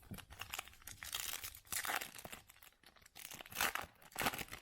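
Trading card pack wrapper being torn open and crinkled by hand, in several spells of crinkling, the loudest near the end.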